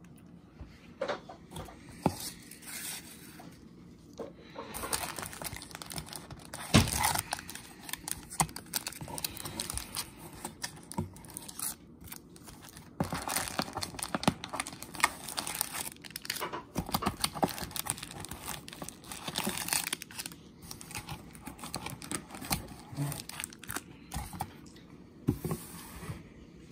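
Foil trading-card pack wrappers crinkling and rustling as the packs are pulled out of a cardboard box and handled, with scattered scrapes and taps.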